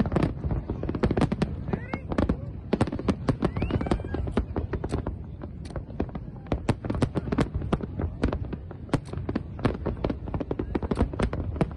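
Fireworks display: a continuous barrage of sharp bangs and crackles, several a second, with a couple of short rising whistles about two and four seconds in.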